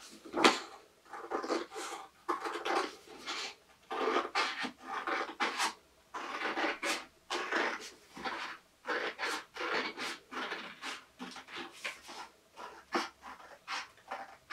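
Scissors cutting through grey paper in an irregular run of short snips, with the sheet rustling as it is turned.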